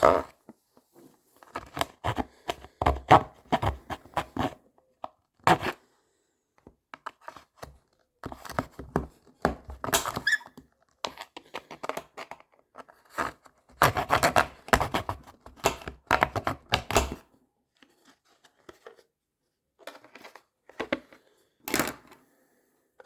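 Hand cutting and scraping of a tough plastic case with a blade, in runs of quick, sharp strokes separated by short pauses.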